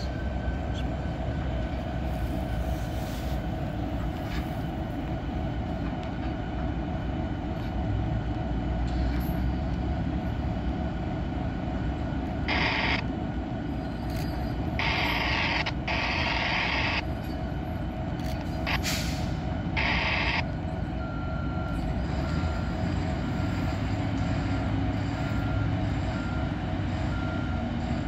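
Freight train running with a steady low rumble. Several short bursts of hiss come in the middle, and near the end a faint ding repeats about once a second.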